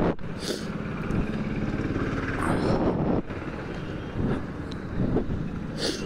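KTM 250 Duke's single-cylinder engine running at low revs, with short hissy bursts of noise about half a second in, around two and a half seconds, and near the end.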